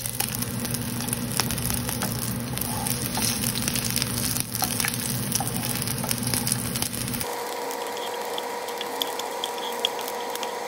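Sliced serrano chiles sizzling and crackling in hot sesame oil in a frying pan over the steady hum of a kitchen range hood, with a wooden spatula stirring them near the end. About seven seconds in, the low hum gives way abruptly to a higher, thinner tone.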